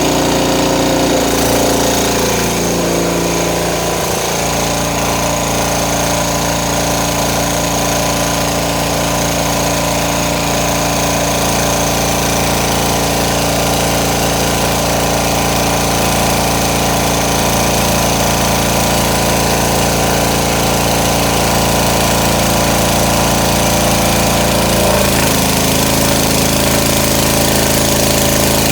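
Small Chinese 196cc single-cylinder diesel generator engine running steadily. Its speed shifts around a few seconds in and steps again about 25 seconds in.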